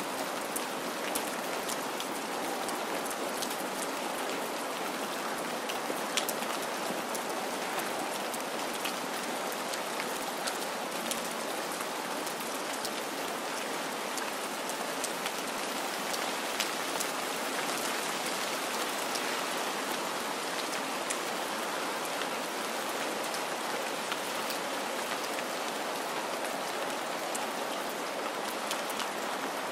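Steady rain, an even hiss with scattered sharp ticks of individual drops striking a surface.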